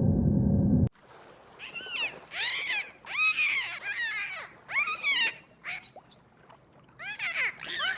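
A loud, low steady drone cuts off suddenly about a second in. Then waterfowl call repeatedly in quick groups of short, arching honks, pause, and start calling again near the end.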